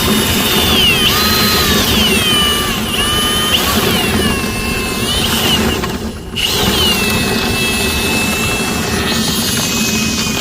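Power drill spinning a dryer-vent cleaning brush inside the duct, its motor whine rising and falling as the trigger is eased and squeezed over a steady scraping rush. It dips for a moment about six seconds in, then holds a steadier speed.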